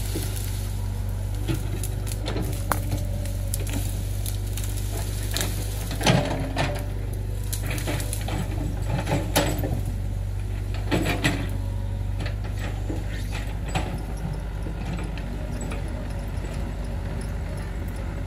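Excavator engine running steadily at a low drone, with scattered knocks and clanks from the digging work, the loudest about 6, 9 and 11 seconds in.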